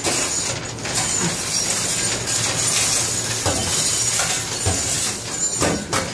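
Steel machinery for handling scrap metal, with a dense, steady metallic clatter and rattle and scattered sharper clinks of metal scraps.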